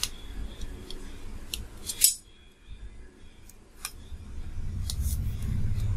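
Kitchen knife cutting through soft steamed dhokla on a metal plate. The blade clicks and scrapes against the plate a few times, with the sharpest click about two seconds in. A low rumble builds over the last two seconds.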